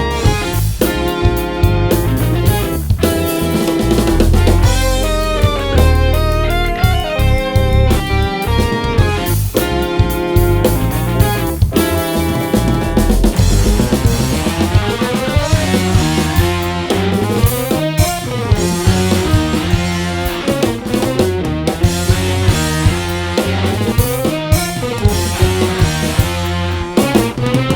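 Instrumental rock music: electric guitars playing over bass and a drum kit with a steady beat.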